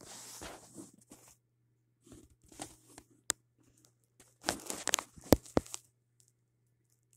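Rustling and crackling handling noise from a phone held against bedding, in short spells with a few sharp clicks, busiest about four and a half to five and a half seconds in.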